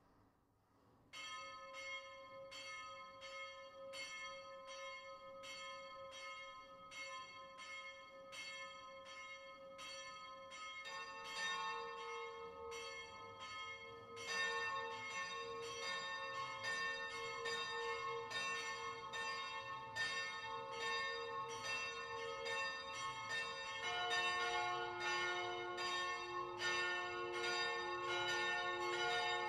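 Swinging church bells, cast by Pfundner in 1960, heard from inside the bell chamber as the full peal starts up. One bell begins striking about a second in. A second bell joins about ten seconds later, a third a few seconds after that and a fourth near the end, and the ringing grows louder as each comes in.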